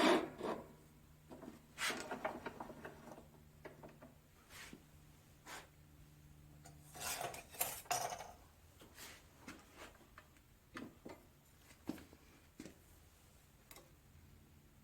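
Scattered clinks, knocks and rubbing from metal stock and tools being handled, with a louder cluster of clatter about seven seconds in, as pieces are set up for cutting.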